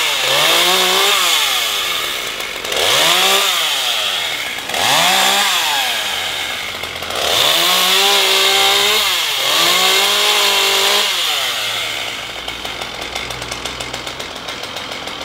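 Chainsaw cutting up a felled plane tree, revving up and falling back repeatedly about every two seconds as it bites into the wood, then running lower and steadier near the end.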